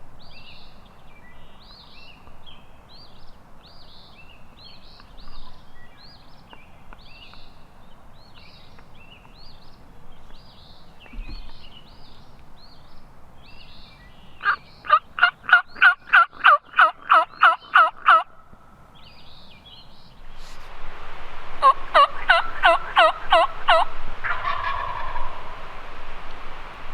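Wild turkey yelping in two rhythmic runs of loud, evenly spaced notes, about three a second: one about halfway in and another near the end. Songbirds chirp through the first part.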